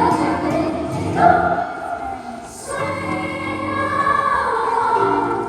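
Choir singing held chords, breaking off briefly about halfway through before a new chord is held.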